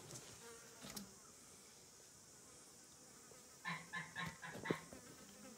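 Faint outdoor ambience: a steady high insect buzz, with a quick run of five or six short pitched calls and a click about four seconds in.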